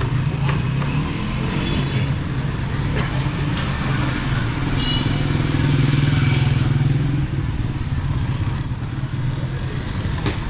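Street traffic: motorcycle and car engines running and passing close by, a steady low rumble that is loudest around the middle, with a brief high tone near the end.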